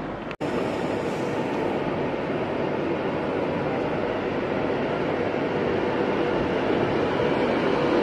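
Class 390 Pendolino electric train moving off close by, a steady rumble and whir that grows a little louder towards the end. A brief break just under half a second in.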